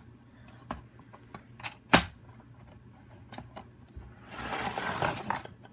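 Plastic shell of a Hyper-Fire toy blaster being pried apart: scattered clicks and creaks, one sharp snap about two seconds in, and a longer scraping rush near the end as the shell halves separate.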